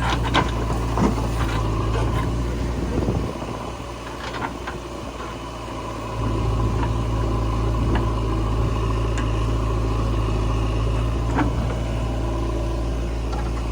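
Heavy diesel engine of earth-moving machinery running steadily with a low hum. The hum drops off for about three seconds a few seconds in, then comes back. A few sharp knocks sound over it.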